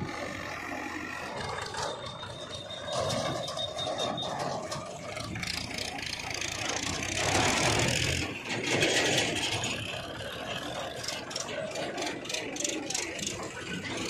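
Diesel engines running with rattling: a JCB 3DX backhoe loader moving, then farm tractors pulling trailers. The sound swells about halfway through.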